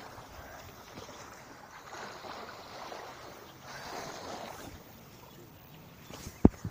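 Outdoor wind and sea noise, a steady hiss that swells and eases a couple of times, with one sharp knock near the end.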